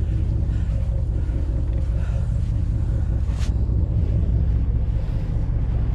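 Steady low rumble of a sportfishing boat's engine running.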